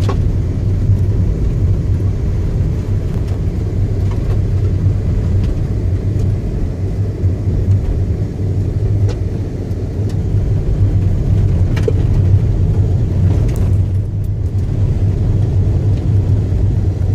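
Inside a moving car's cabin: a steady low rumble of engine and tyres on rough, patched asphalt, with a few faint clicks or rattles.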